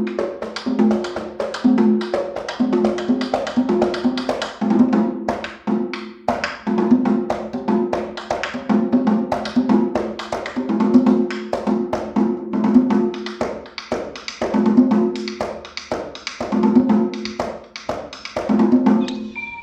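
Handmade tambora drums with cowhide heads played in a fast, driving rhythm: dense sharp hits with a woody clack, over pitched drum tones in a pattern that repeats about every two seconds.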